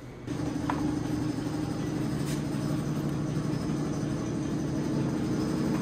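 A steady, low machine hum, a motor running, starts abruptly a moment in and holds at an even level.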